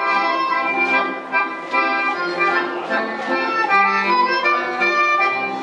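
Accordion-led Estonian folk dance music with a steady beat of about two strokes a second.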